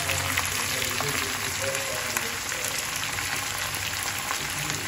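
Chopped red onions frying in hot oil in a wok: a steady sizzling hiss with scattered small crackles.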